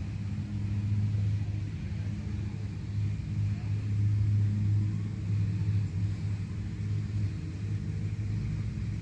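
A steady low rumbling drone of a motor vehicle running, swelling slightly in loudness about a second in and again around the middle.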